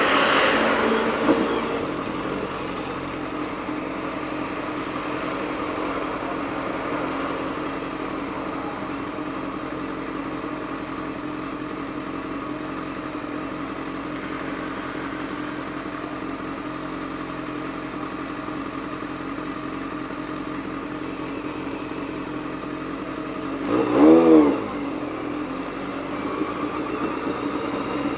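Honda CBX 750's inline-four engine running steadily while riding. It is slightly louder in the first couple of seconds, and near the end there is a short, sharp rise and fall in revs.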